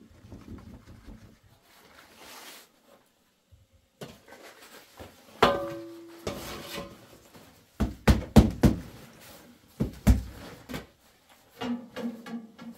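Knocks and thuds of objects being handled. One struck object rings briefly about five seconds in, then a cluster of loud knocks comes around eight seconds and another near ten.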